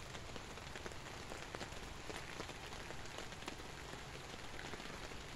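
Light drizzle falling: a steady hiss of rain with scattered single drops ticking at irregular moments.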